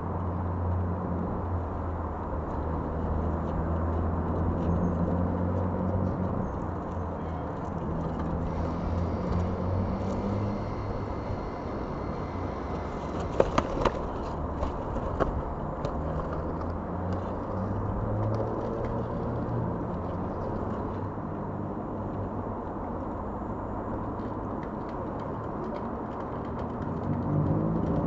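A steady low rumble with a droning hum that shifts in pitch every few seconds, and a few sharp clicks about halfway through.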